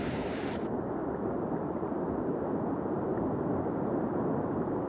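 Fast river water rushing and splashing against the bow of an inflatable rescue raft. It is a steady rushing noise that turns duller under a second in, when its brighter hiss drops away.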